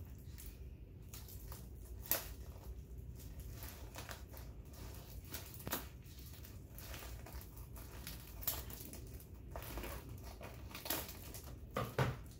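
Foil gift wrapping crinkling and crackling in the hands while being cut open with scissors, in short irregular snaps. A louder knock near the end as the scissors are set down on the table.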